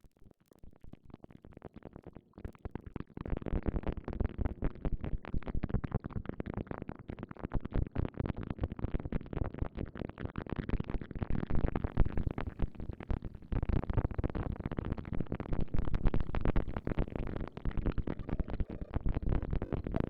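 Noise texture from a VCV Rack modular synthesizer patch using FM synthesis. It is a dense stream of rapid grainy clicks over a low, rumbling noise, faint at first and much louder from about three seconds in.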